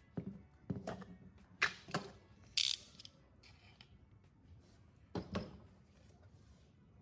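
A few separate knocks and clicks of small hard objects being handled, with one short hissing scrape partway through.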